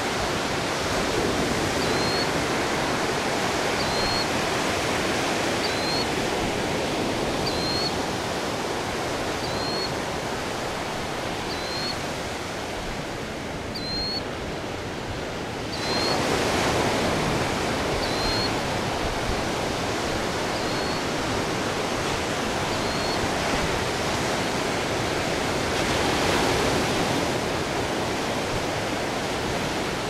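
Killdeer giving short, sharp, high alarm notes about once a second, with a pause in the last third and one more note near the end. Steady surf runs underneath, with waves breaking louder about halfway through and again later.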